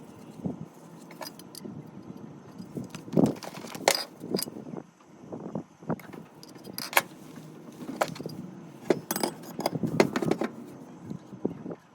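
Irregular clinks, taps and knocks of plumbing parts and tools being handled, with a few louder knocks around four seconds in and again near ten seconds.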